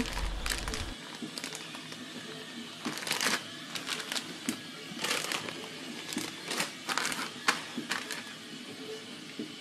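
Plastic freezer bags of frozen manti crinkling and rustling in a dozen or so short, irregular bursts as they are handled.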